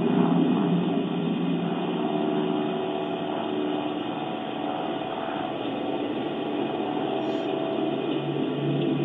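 Steady rumbling noise with a faint hum from a low-quality outdoor security-camera recording, dull and cut off above the middle range.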